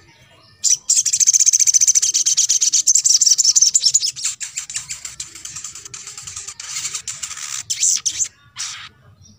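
Olive-backed sunbird song: a long, very fast, high trill of rapid notes starting just under a second in, loudest for about three seconds and then thinning out, followed by one short separate call near the end.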